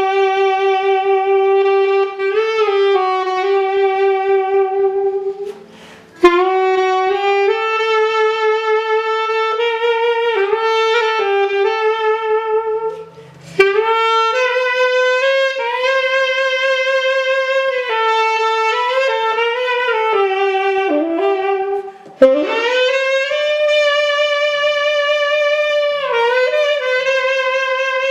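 Selmer Mark VI saxophone, freshly overhauled and stripped to bare brass, played solo: a slow melody of long held notes with slides between them, broken by three short pauses.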